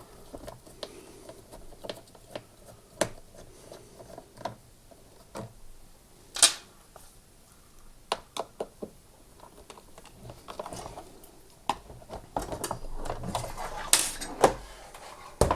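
Scattered clicks and knocks of a Torx screwdriver undoing screws and of a plastic lawnmower motor housing being handled and lifted out, with a sharper knock about six seconds in and another near the end.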